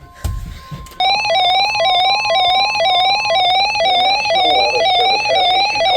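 Loud, buzzy electronic alert tone warbling evenly up and down around one pitch for about five seconds, starting about a second in, ahead of a recorded weather alert message.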